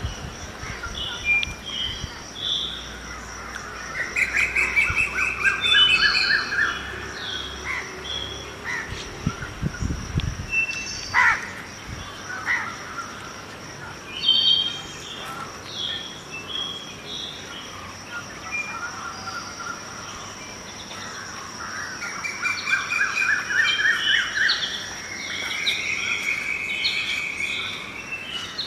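Several birds chirping and calling, with fast trilled runs a few seconds in and again near the end, over a steady high-pitched tone. A brief low rumble comes about nine seconds in.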